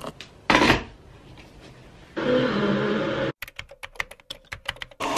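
A string of short everyday sounds with cuts between them: a brief loud rush about half a second in, a steady hum a little after two seconds, then a quick run of sharp clicks, about eight a second: typing on a computer keyboard.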